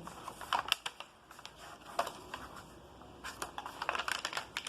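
A sheet of paper being handled and folded: short, crisp rustles and crinkles in bursts, busiest in the last second and a half.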